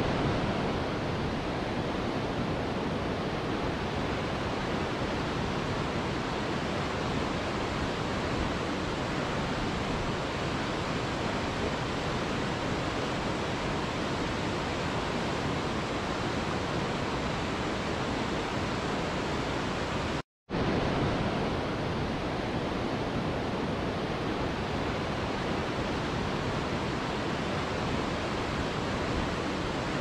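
Waterfall, a steady dense rush of falling water. The sound cuts out for a split second about twenty seconds in, then carries on unchanged.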